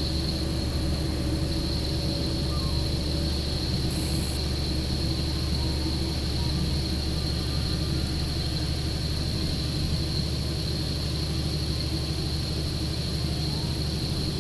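Steady running noise inside a KiHa 40 diesel railcar under way: the diesel engine's low drone mixed with wheel noise from the rails, with a constant high-pitched whine running through it.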